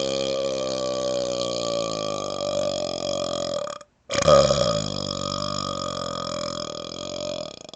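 Two long, loud belches from a man, each lasting about four seconds with a brief break between them a little past the middle. The pitch sinks slowly through each, and the second breaks up into a rattle near the end.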